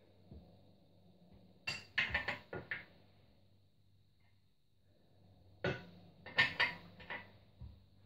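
Metal headset parts clinking and knocking against the steering head of a Yamaha YZ125 motocross frame during a headset install, in two quick runs of sharp clinks, one about two seconds in and another about six seconds in.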